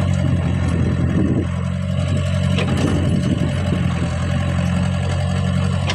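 Caterpillar E70B excavator's diesel engine running steadily as the boom and bucket work. A single short knock sounds about two and a half seconds in.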